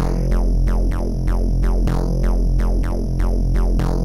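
Amiga demo soundtrack: electronic music with a steady drum-machine beat of about four hits a second over a repeating bass line.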